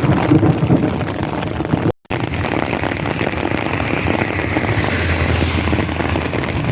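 Heavy rain pouring down in sheets, a dense steady hiss of drops. The sound cuts out completely for a moment about two seconds in, and a low rumble builds under the rain in the second half.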